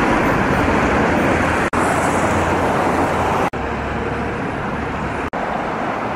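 Steady city road-traffic noise, a wash of passing cars, broken by brief dropouts about every two seconds.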